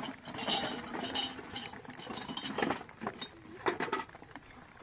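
Dishes and utensils clinking and knocking as they are handled: a string of sharp taps, several close together near the end.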